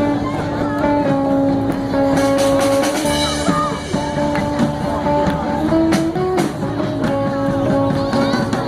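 Music with guitar, its melody moving in long held notes.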